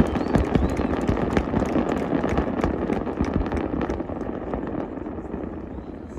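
Fireworks exploding in the sky: a dense run of crackling pops over a low rumble, loudest at the start and gradually dying away.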